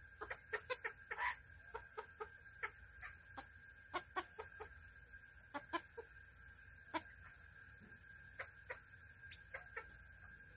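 Serama bantam chickens clucking in short, separate calls, a quick cluster of them in the first couple of seconds and then scattered single clucks.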